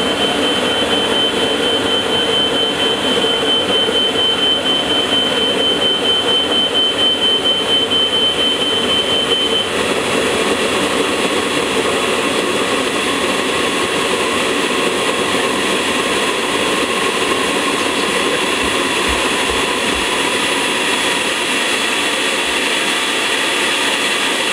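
Valveless pulse jet running on its test stand, boosted by a 70mm electric ducted fan: a loud, steady jet roar with a thin high whine over it. About ten seconds in, the whine steps up in pitch.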